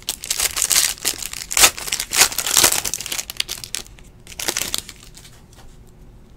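Foil trading-card pack wrapper being torn open and crinkled by hand: a dense run of sharp crackles for about four seconds, then one more short crinkle about four and a half seconds in.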